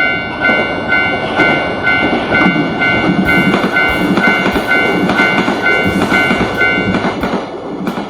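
Railroad crossing bell ringing about twice a second while a train passes with a rumble and wheel clatter on the rails; the bell stops near the end.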